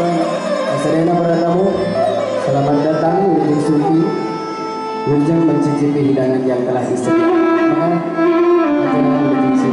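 A man sings an Arabic-style devotional song into a microphone over a live band of oud and hand drums, heard through a PA system.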